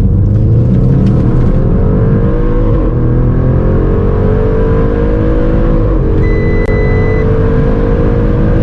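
Audi RS6 at full throttle, heard from inside the cabin, its exhaust with the centre resonator replaced by straight pipes. The engine note climbs in pitch, drops at upshifts about three and six seconds in, then climbs slowly again over steady road rumble. A short beep sounds about six seconds in.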